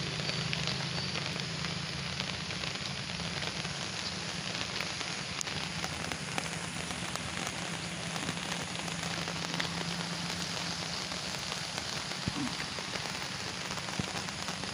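Steady hiss of rain falling on a wet bridge deck, with scattered small drop ticks, over the rush of a swollen, flooded river.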